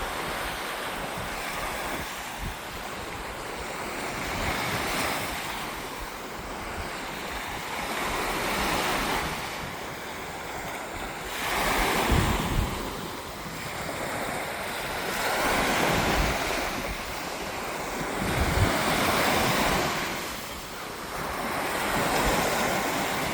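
Sea waves breaking and washing up the shore, swelling and easing every three or four seconds, with wind buffeting the microphone.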